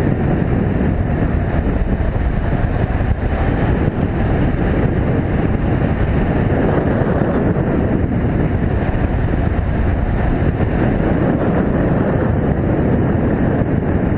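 Steady, loud wind noise from air rushing over the microphone of a camera mounted on a hang glider in flight, mostly a low rumble.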